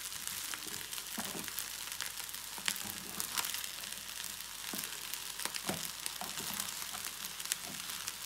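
Rice with mixed vegetables and shrimp sizzling in a frying pan while a silicone spatula stirs and turns it, giving a steady hiss broken by scattered scrapes and ticks.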